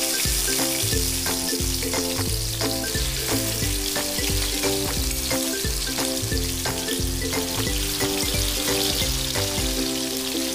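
Marinated chicken drumsticks frying in hot oil in a non-stick kadai, a steady sizzle, under background music.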